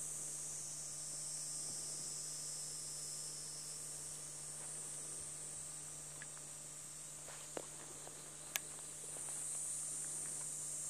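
Steady high-pitched chorus of insects that thins a little midway and swells again near the end. A few light footsteps and clicks come in the second half, one sharper than the rest.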